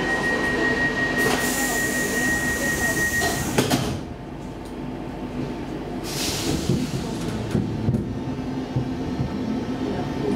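Stockholm Metro C14 subway car standing at a platform as its sliding doors close. A steady high tone and a hiss run for about three seconds, then the doors shut with a sharp knock. About two seconds later comes another burst of hissing air, over a low steady hum.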